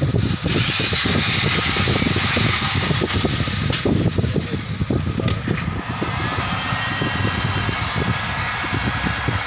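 Heat gun blowing hot air onto vinyl skin being fitted to a camera battery grip: a steady rush of air with a low rumble and a faint motor whine.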